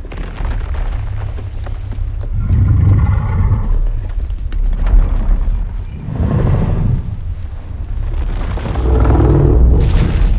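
Godzilla creature sound effects: a deep, continuous rumble with pitched growling swells about three seconds in, around six seconds in, and again near the end.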